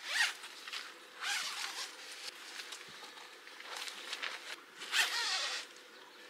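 Tent door zipper being pulled in four short rasping strokes, the loudest about five seconds in.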